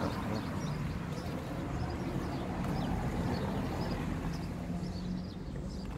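A steady low engine hum, with short high bird chirps over it.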